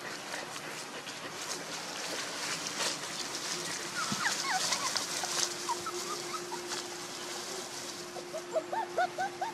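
Young puppies whimpering and squeaking in short, high, upward-gliding cries, a cluster in the middle and many more near the end, over a faint steady hum and rustling.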